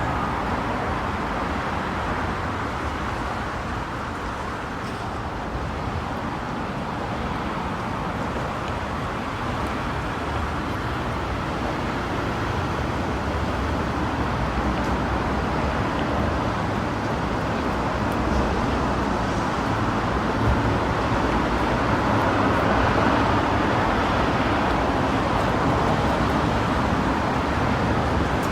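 Steady wash of road traffic noise, growing a little louder in the second half.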